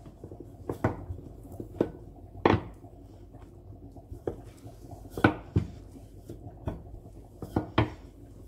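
Wooden rolling pin flattening a piece of roti dough on a glass cutting board, clacking against the board in irregular knocks as it is rolled back and forth.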